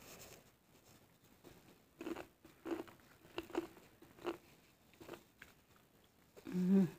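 A person chewing a mouthful of sate Padang, short chewing sounds about twice a second. Just before the end comes a brief low hummed 'mm' from the voice.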